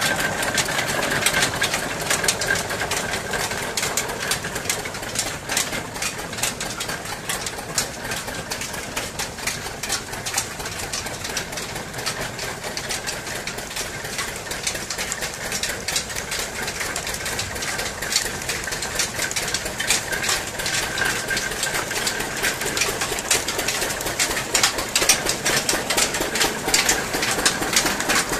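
Belt-driven sugarcane crushing mill running steadily, its geared rollers crackling and clicking densely as cane stalks are fed in and crushed for juice.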